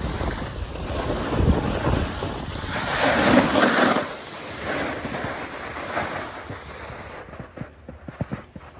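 Snowboard sliding and scraping over snow, with wind rushing over the microphone. It is loudest a few seconds in and dies away near the end.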